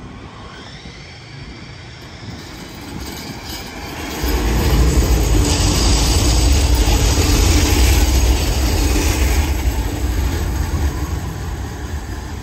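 A tram passing close by. The low rumble of its wheels on the rails comes up sharply about four seconds in, holds for several seconds with a higher hiss over it, then fades away.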